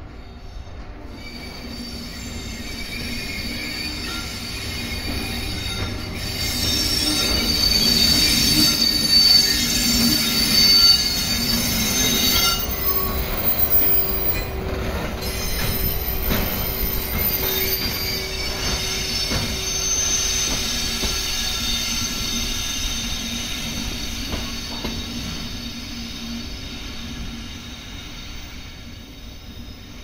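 EF81 electric locomotive hauling a 12-series passenger coach passes by, its wheels squealing in several high steady tones over a low rumble from the rails. It grows louder to a peak about 8 to 12 seconds in, then fades as the train moves away.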